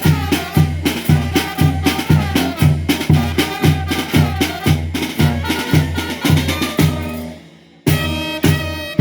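Mexican brass band (banda de viento) playing, with a steady bass beat of about three hits a second under the horns. The music stops about seven seconds in, then one short final burst of about a second follows.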